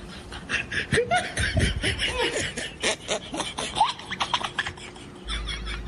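A person laughing in quick, breathy snickers, with short squeaky rises and falls in pitch.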